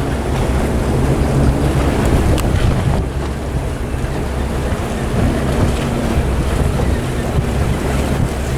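A small motorboat's engine running steadily, with water rushing past the hull and wind buffeting the microphone.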